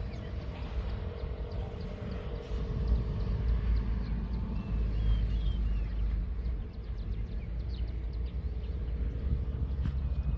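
Low rumble from wind on the microphone, with footsteps through the crop field. A few faint bird chirps come about halfway through.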